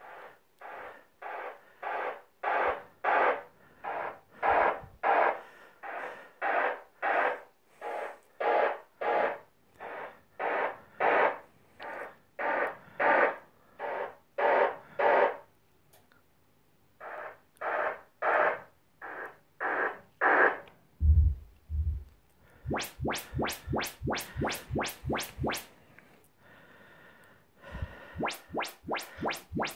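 Yamaha YPAO auto-calibration test signals played through the home-cinema speakers, speaker by speaker: a long run of short noise bursts, about two a second, then after a short gap a few more, and a brief low burst from the subwoofer. About two-thirds of the way in it changes to quick rising sweep chirps, several a second, as the measurement stage runs.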